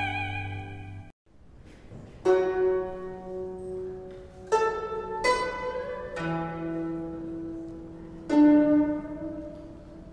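Background music. A held, wavering note fades out about a second in, then slow, sparse plucked-string notes each ring out and die away.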